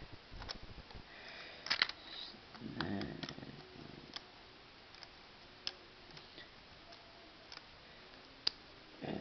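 Lego bricks clicking and rattling, a dozen or so separate sharp clicks as pieces are picked out and pressed together, with a short low rumble around three seconds in.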